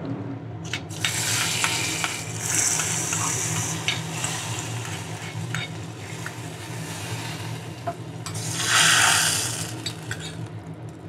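Hot coconut-oil tempering of mustard seeds, dried red chillies and curry leaves sizzling as it is poured into coconut-milk curry. The hissing comes in two spells, starting about a second in and again near the end, with a few light metal knocks from the small pan.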